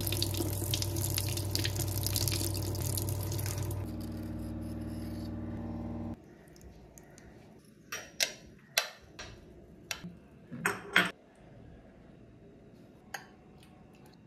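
Tap water running through a fine-mesh stainless-steel strainer into a sink, stopping after about five seconds. A few seconds later come several sharp clinks of a metal spoon against a small glass bowl as soaked seeds are stirred.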